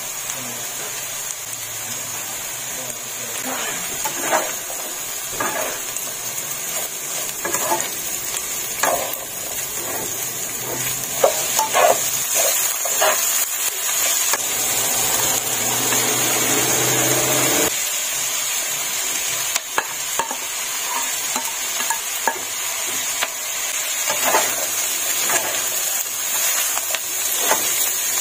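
Food sizzling in a granite-coated nonstick frying pan while a plastic slotted spatula stirs and tosses it, with irregular scrapes and taps of the spatula against the pan over the steady sizzle.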